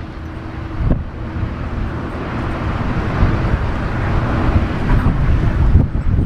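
Airbus A310-300 jet engines running as the airliner rolls along the runway, a rushing noise that grows louder over the first few seconds as it approaches, with gusty wind buffeting the microphone.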